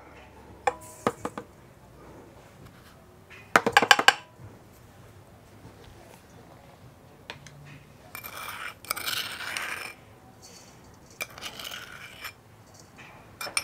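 A metal spoon clinking and scraping against a small glass bowl as sugar is scraped out into a stand mixer's steel bowl. There are light taps about a second in, a quick run of ringing clinks about four seconds in, and two stretches of scraping in the second half.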